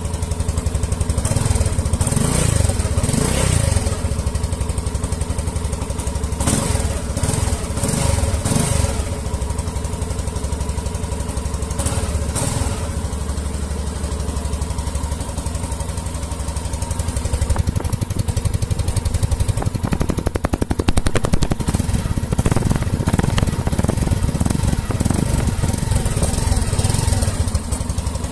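Yamaha XTZ 150 Crosser's single-cylinder four-stroke engine running through its exhaust, idling between throttle blips: a few quick revs in the first half, then a longer stretch of repeated revving.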